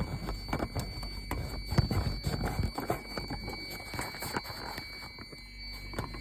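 Irregular clatter of clicks and knocks, densest over the first five seconds, over a faint steady high-pitched tone.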